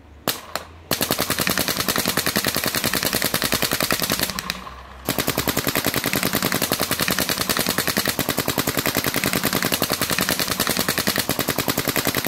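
Planet Eclipse Geo2 paintball marker with its standard bolt assembly firing: two quick shots, then long, fast, even strings of shots at many shots a second, broken by a brief pause about four seconds in.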